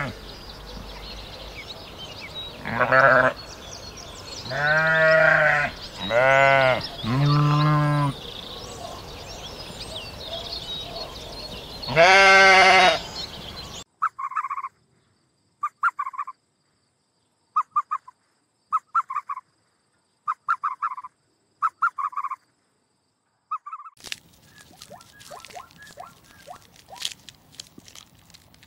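Sheep bleating, five loud deep bleats over the first half, the last and loudest near the middle. Then a run of short, clipped calls about a second apart with silence between, and near the end a dry crackling and crunching.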